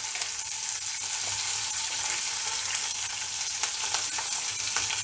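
Green chillies and onion chunks frying in a little oil in a nonstick kadai: a steady sizzle.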